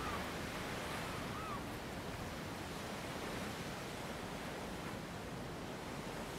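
Steady wash of sea surf. Two short, high chirps come in the first second and a half.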